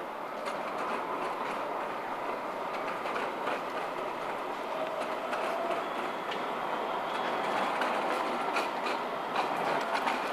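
A low-floor city tram rolling across a track junction of curves and crossings, its steady rumble growing a little louder, with scattered clicks of the wheels over the rails and a faint thin squeal near the middle.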